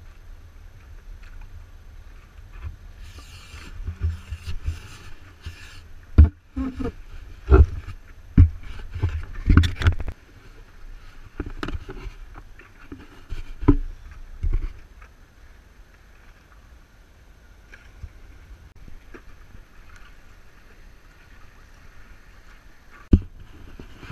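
Stand-up paddleboard paddle strokes: a run of splashes and sharp knocks of paddle and water through the middle, over a steady low rumble, with one more sharp knock near the end.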